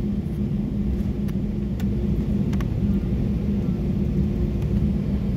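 Cabin noise of an Airbus A320 taxiing: a steady low rumble from the jet engines at taxi power with a steady hum, and a few faint clicks.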